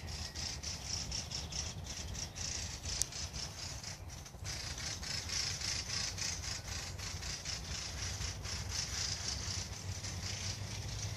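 Outdoor forest ambience: a steady, high-pitched buzzing hiss with a fast flutter, over a low rumble.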